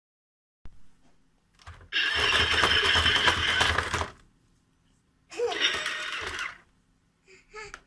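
Tonka Chuck talking toy truck playing its electronic sound effects and voice phrases through a small built-in speaker. There is a long noisy engine-like effect, then a short burst with voice-like pitch, separated by silences.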